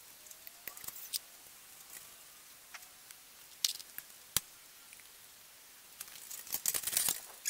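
Scattered light clicks and knocks of steel rake parts being handled and fitted by hand, with one sharp metallic knock about halfway through and a quick flurry of clatter near the end.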